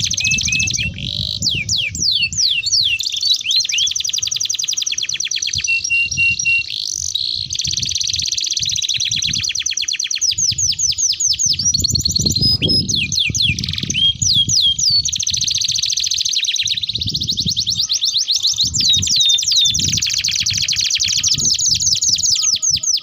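Domestic canaries singing long rolling song: fast trills of rapidly repeated high notes and quick sweeping phrases, run together with only brief breaks.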